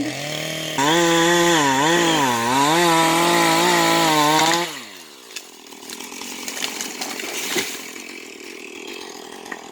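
Husqvarna chainsaw running at high revs in a pine felling cut, its pitch dipping and rising under load. About four and a half seconds in, the engine note drops away and stops. A quieter rushing and crackling follows with a couple of sharp snaps, fitting the cut pine going over.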